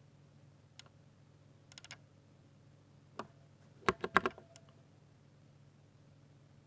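Keystrokes on a 60% Ducky mechanical keyboard with silver switches, typed in sparse bursts: a single key, a quick run of about four, another single key, then a louder cluster of about five strokes in the middle.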